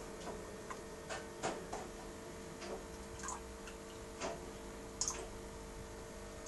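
A dozen or so light clicks and taps at irregular spacing, the sharpest about a second and a half in and about five seconds in, over a steady hum from the aquarium equipment, while discus fish are fed.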